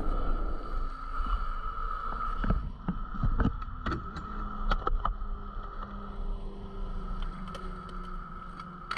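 Skateboard wheels rolling over rough concrete with a steady low rumble, broken around three to four seconds in by a cluster of sharp clacks and knocks as the board pops onto and rides a wooden-topped box ledge; a few lighter clicks follow as the rolling goes on.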